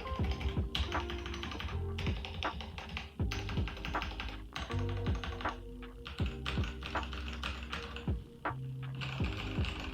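Background music with a bass beat, over the rapid clacking of keys being typed on an LTC Nimbleback 65% mechanical keyboard.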